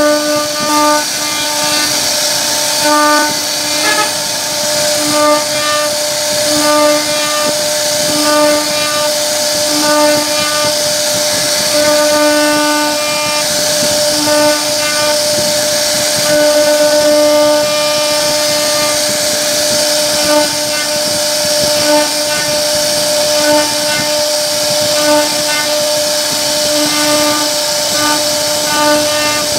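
CNC router's high-speed spindle carving a wooden door panel: a steady pitched whine over a hiss of cutting. The lower part of the tone swells and fades irregularly as the bit's load in the wood changes.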